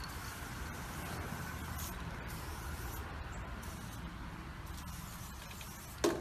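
Aerosol spray-paint can hissing in short bursts as the paint goes on, over a steady low rumble. A single knock about six seconds in.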